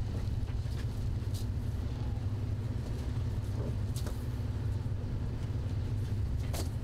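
Steady low drone of a sardine purse seiner's engine running while the net is hauled, with a few short knocks on deck.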